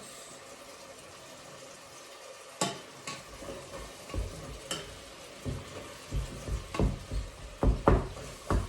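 Onion and garlic sizzling in melted butter in a frying pan with a steady hiss. Partway through, a utensil starts stirring the pan with a couple of sharp clicks and then quick, repeated knocks and scrapes against the pan that get denser toward the end.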